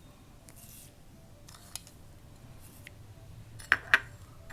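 Metal spoon clinking against a container as sugar is spooned into milk: a faint tap about a second and a half in, then two sharp clinks close together near the end.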